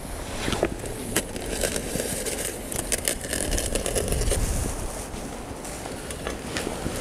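Aluminium foil crinkling and tearing with many small irregular crackles, as a knife slits open and pulls back the foil around racks of ribs on a grill grate.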